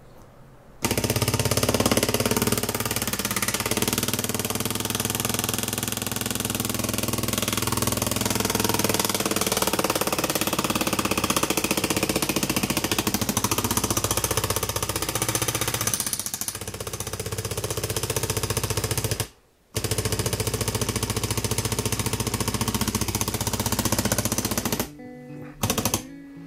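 Small 3D-printed PLA single-cylinder solenoid engine on its first test run, switched by a light gate, with a fast, steady rattling clatter as the solenoid pulls the plunger on every revolution. It stops abruptly for a moment about three-quarters of the way through, starts again, and cuts out near the end.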